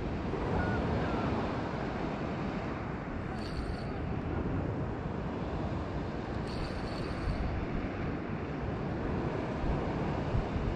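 Wind rumbling on the microphone over the sea at the shore, with a hiss of surf washing in about every three seconds.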